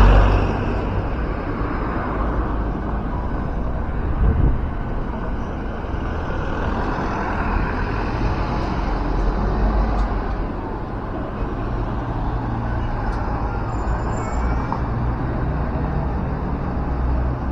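City bus running on the road with its diesel engine rumbling steadily amid road noise, with a louder knock at the start and another about four seconds in.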